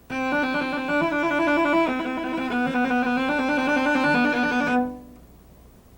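Cello bowed in its upper-middle register, alternating between two neighbouring notes in a slow trill exercise with the unused finger kept off the string. It moves to a slightly lower pair of notes about two seconds in, and the last note dies away about five seconds in.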